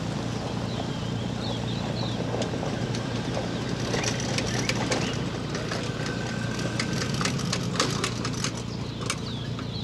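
Scattered clicks and knocks of fishing gear being handled in bass boats, most of them in the second half, over a steady low hum, with short bird chirps now and then.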